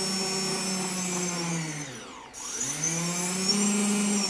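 Brushless motors of an F450 quadcopter spinning without propellers, a steady electric whine. About two seconds in the pitch falls away as the throttle comes down, then rises again as it is pushed back up.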